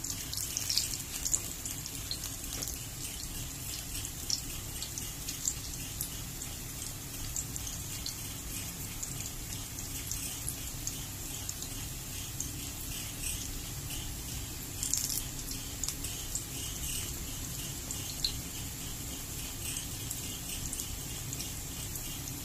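Eggplant slices and dried squid frying in oil in a pan: a steady sizzle with scattered small pops and crackles.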